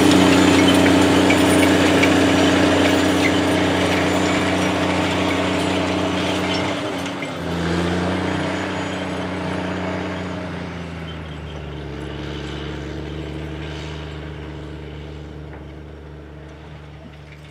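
The 535 hp engine of a Case IH 535 Quadtrac tractor runs steadily under load, pulling a 40 ft Great Plains Turbo-Chopper tillage tool through the soil. The engine note dips briefly about seven seconds in and settles a little lower, and the whole sound fades steadily as the tractor moves away.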